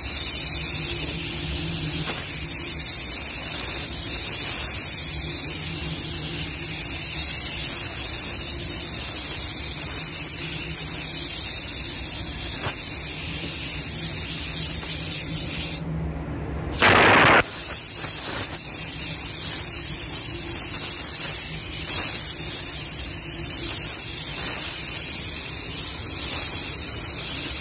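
Compressed-air paint spray gun hissing steadily as it lays a coat of transparent red paint on a car panel. There is one short break with a brief louder burst about two-thirds of the way through.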